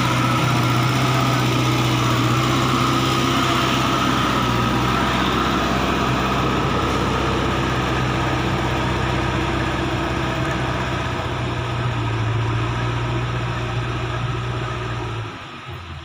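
JCB 3DX backhoe loader's diesel engine running at a steady speed, growing slightly fainter and then dropping off sharply near the end.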